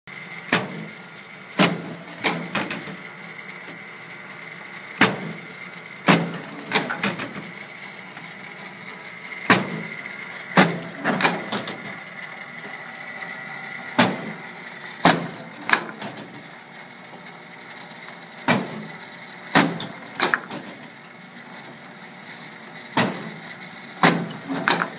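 Matrix 530 roll laminator running, a steady hum with a thin high whine, broken by sharp knocks at irregular intervals, often in pairs or threes, as sheets are fed through.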